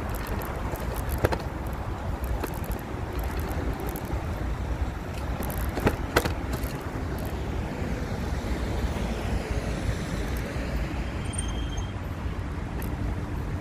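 Steady low rumble of wind and road noise while riding an e-bike, with a few sharp clicks, two of them close together about six seconds in.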